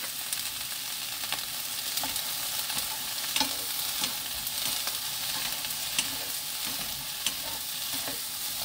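Sliced onions sizzling in a little oil in a frying pan over high heat, stirred and tossed with two wooden spatulas that scrape and knock against the pan, with a few sharp knocks along the way.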